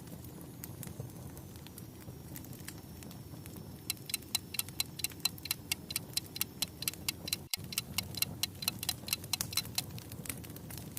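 Fire crackling over a low steady rumble, with a fast run of sharp pops, about five a second, starting about four seconds in and lasting several seconds. The sound cuts out for an instant partway through the run.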